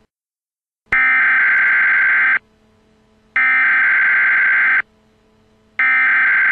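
Emergency Alert System SAME header: three bursts of digital data tones, each about a second and a half long with about a second's pause between them. The header carries the coded alert that sets off EAS receivers before the attention signal and the spoken message.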